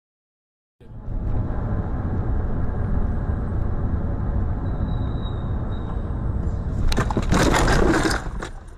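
Dashcam car driving in city traffic: a steady low rumble of engine and road noise starting about a second in. About seven seconds in comes a loud, harsh crash lasting about a second as another car cuts in close alongside, most likely a sideswipe collision.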